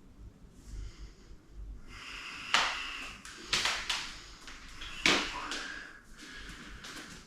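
Three sharp knocks and clatters of objects being handled, like a drawer or cupboard being worked, spaced about a second apart, followed by a faint steady hum.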